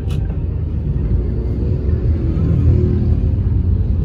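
Steady low rumble of a moving vehicle's engine and road noise, heard from on board.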